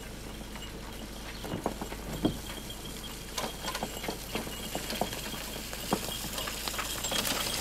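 Horse-drawn cart coming closer on a wet dirt road: irregular hoof clops and knocks from the cart, growing louder toward the end.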